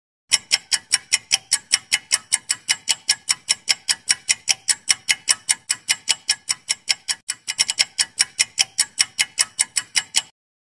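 Clock-ticking sound effect for a ten-second quiz timer: sharp, even ticks about five a second, a little uneven for a moment near the end, then cutting off suddenly.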